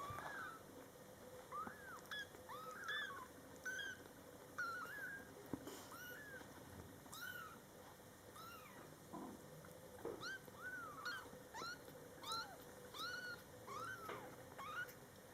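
Two-week-old kitten mewing: a long run of short, high mews, one or two a second.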